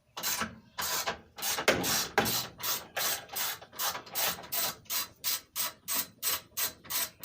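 Hand ratchet wrench with an extension being swung back and forth on a bolt, each back-swing a short burst of clicks. The strokes quicken from about two to about four a second as the bolt turns more freely.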